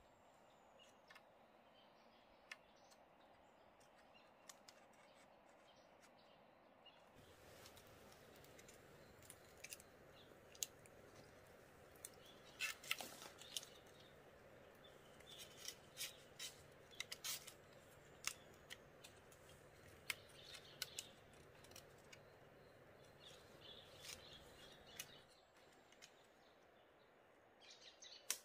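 Quiet, scattered crackles and snaps from hands working a green bamboo stem among dry leaves, thickest in the middle stretch, with faint birds chirping.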